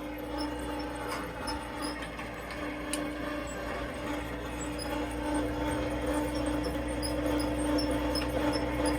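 Homemade trommel soil sieve running: a steady machine hum with faint high squeaks recurring a few times a second.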